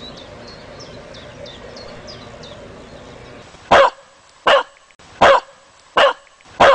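Faint outdoor ambience with birds chirping, then a dog barking five times at a steady pace, about one bark every three quarters of a second, starting a little past halfway.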